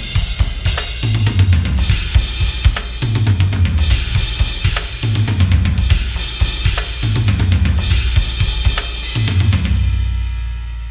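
Sampled metal drum kit from the MetalHeads EZX library playing a fast, dense groove of kick, snare and cymbals. Near the end the playing stops on a final hit that rings out and fades.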